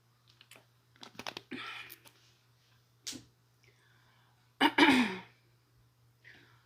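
Close-up eating sounds: sharp mouth and fork clicks and a short burst of slurping or chewing. Just before the middle comes one loud breathy exhale with a little voice in it, falling in pitch.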